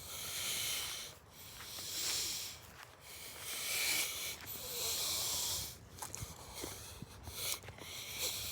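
A person breathing hard close to the microphone, a string of hissy breaths each about a second long, quicker and shorter toward the end.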